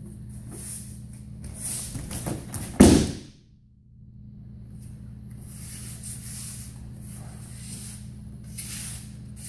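A judoka thrown onto tatami mats: feet shuffling and judo uniforms rustling, then one loud slap of the body and breakfall onto the mat about three seconds in, followed by softer brushing of cloth and feet on the mat. A steady low hum runs underneath.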